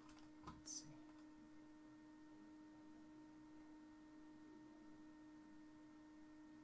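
Near silence: a steady faint electrical hum, with two brief soft hisses under a second in.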